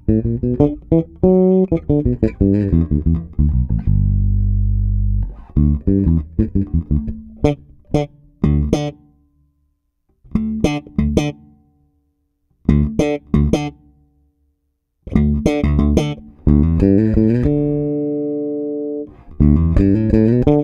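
Electric bass guitar played fingerstyle through a Darkglass Hyperluminal compressor pedal in Symmetry mode. Short phrases of plucked notes come with a few long held notes and brief silences between the phrases. The notes are played with a light attack, and the compressor holds up their sustain.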